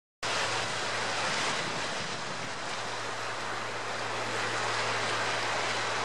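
Steady wash of sea water against a rocky shore, an even hiss with no single wave standing out, over a faint steady low hum.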